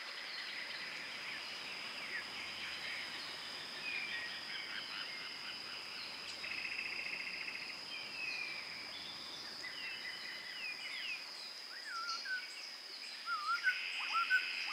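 Woodland birds singing and calling in short chirps and trills, over a thin, steady high-pitched tone. Louder calls that rise in pitch come in near the end.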